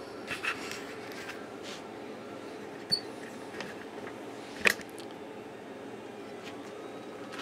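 Quiet workshop room tone: a steady low hum with a few light clicks and taps, the loudest a sharp click a little past halfway.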